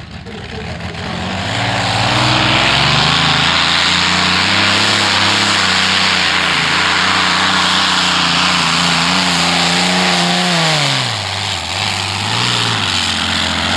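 Modified-class pulling tractor's engines at full throttle under load from the sled. The engine note builds over the first couple of seconds, then runs high and steady with the revs wavering, and the pitch falls sharply near the end.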